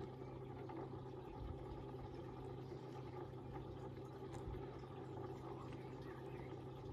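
Koi pond filtration running: a steady low hum with a soft, even wash of moving water.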